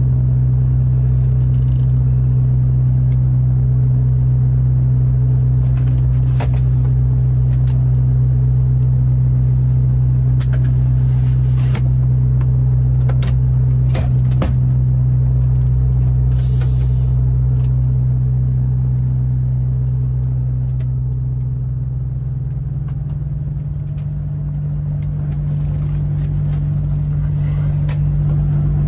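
Steady low drone of a Scania R580's V8 diesel heard inside the cab while the truck cruises on the highway, with road noise and a few faint clicks and rattles. About three-quarters of the way through the drone eases slightly, then comes back at a slightly higher pitch.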